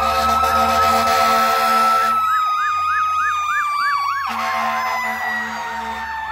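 Several fire truck sirens sounding together as the engines pass. A long siren tone rises a little and then slowly falls under quicker wailing sweeps, and for about two seconds in the middle a fast yelp cuts in at about three sweeps a second.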